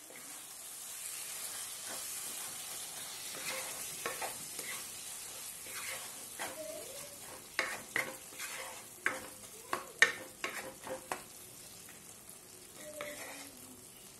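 Curry masala of onion and tomato sizzling in a wok while a wooden spatula stirs it, scraping and knocking against the pan. The sizzle swells over the first couple of seconds; the spatula knocks come thickest around the middle, the loudest about ten seconds in, and thin out near the end.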